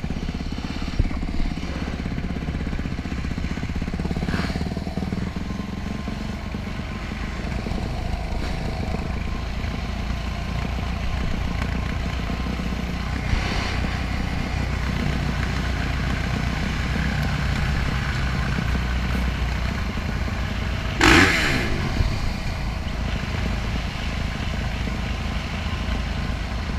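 Motorcycle engine running steadily at low road speed, with wind noise on the microphone. There are a few short clattering knocks, the loudest about 21 seconds in.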